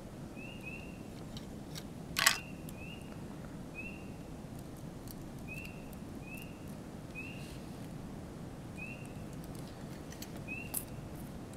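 Two sharp clicks of hands working wires and the camera's circuit board, the louder one about two seconds in and a smaller one near the end. Through them, a short high chirp repeats roughly once a second over a steady low background noise.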